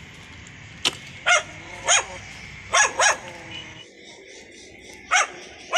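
A dog barking in short single barks, six in all, spaced irregularly.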